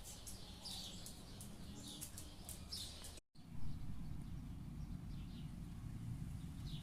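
Small birds chirping in short, falling calls, several in the first half and fainter, sparser ones later, over a steady low rumble. The sound drops out completely for a moment a little after three seconds.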